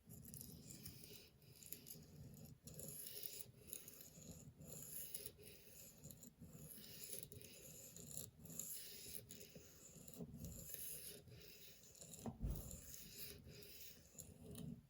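Steel knife blade stroked back and forth across a wet Spyderco medium sharpening stone lubricated with soapy water, making a faint rasping scrape in a steady rhythm of a little over one stroke a second. There is a soft low thump about twelve seconds in.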